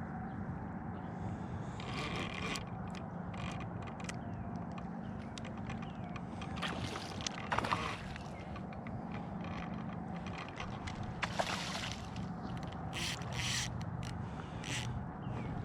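A boat's motor running steadily, its low hum dropping slightly in pitch near the end, with scattered short scrapes and clicks of gear being handled.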